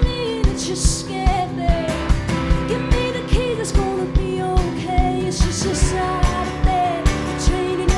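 Live rock band performing a song: a woman sings over guitar, bass and drums, with a steady kick-drum beat about twice a second.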